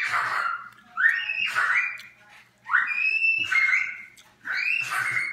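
A run of four loud, high-pitched cries, each about a second long, with the pitch sliding up and down.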